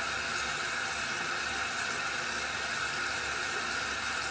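Tap water running steadily into a bathroom sink.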